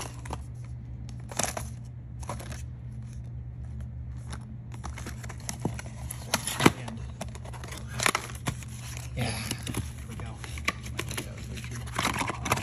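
A small paperboard box being worked open by hand: irregular scrapes, rustles and sharp taps of cardboard, with the louder ones about six to eight seconds in and again near the end. A steady low hum runs underneath.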